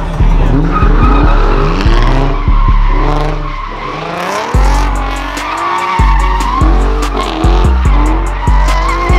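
Tyres squealing as cars drift, with a wavering squeal and engines revving up and down, under music with a heavy bass beat that is the loudest thing.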